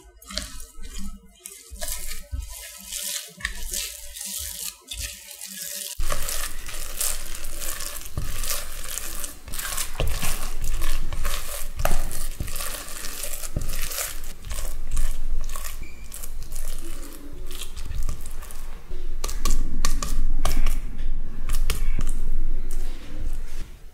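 Red silicone spatula mashing and stirring a crumbly egg mixture against the sides of a glass bowl: a quick run of scraping and squishing strokes that becomes louder and denser from about six seconds in.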